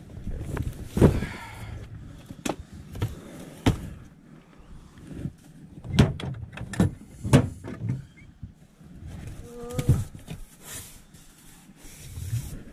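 Cardboard boxes and furniture being shifted by hand: a series of separate knocks and thuds with scraping between them, and a short squeak just before ten seconds in.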